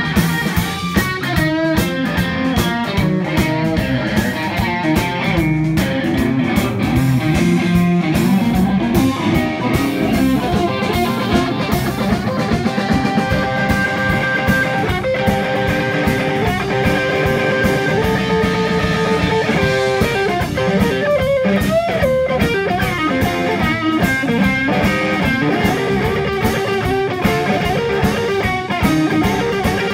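Live blues band playing an instrumental passage: Stratocaster-style electric guitar to the fore over drum kit and bass guitar, with long held guitar notes in the middle. Recorded on a phone, so the sound is rough.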